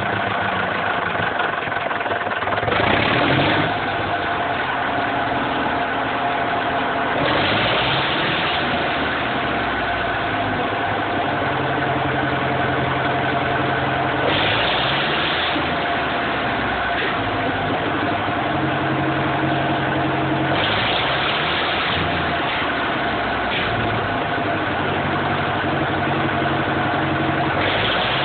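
Fordson Major diesel tractor engine running just after a cold start, idling with about five quick throttle blips a few seconds apart.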